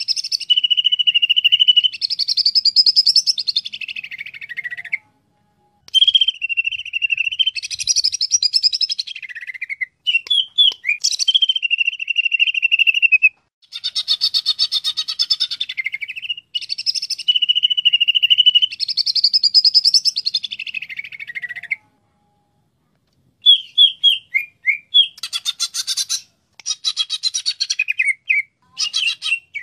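Cucak ijo (greater green leafbird) singing. Phrases several seconds long mix a steady held whistle with fast trills, separated by short pauses. Near the end the song breaks into shorter choppy notes and buzzy bursts.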